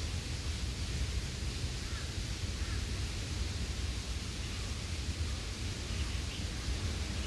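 Steady outdoor rushing noise with a low, unsteady rumble, and a few faint short bird calls about two seconds in and again near the end.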